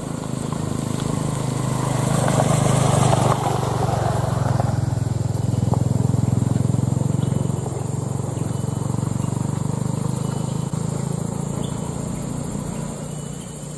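Diesel engines of laden Mitsubishi Canter trucks running as they drive along a rough dirt track, swelling louder a few seconds in and fading near the end.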